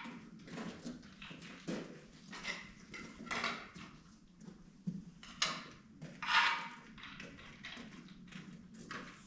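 Scattered clinks, taps and scrapes of metal tools and parts being handled, with the loudest clatter and scrape about five to six and a half seconds in.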